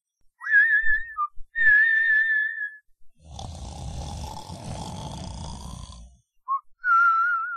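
Exaggerated comic snoring: two wavering whistled notes, then one long snore of about three seconds, then whistling again near the end.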